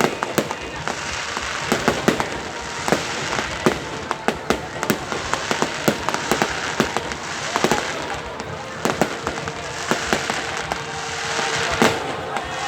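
Aerial fireworks display: a rapid, irregular string of sharp bangs from shells bursting, several a second, over a continuous crackling haze.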